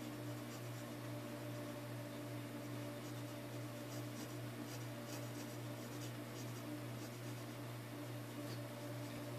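Mechanical pencil scratching on paper in short strokes, sketching hair strands, over a steady low electrical hum.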